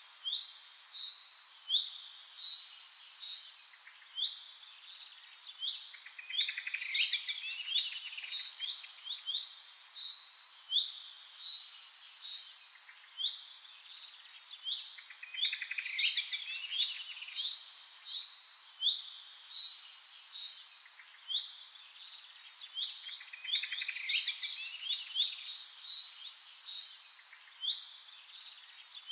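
Birdsong: high chirps and fast trills in bursts, one after another.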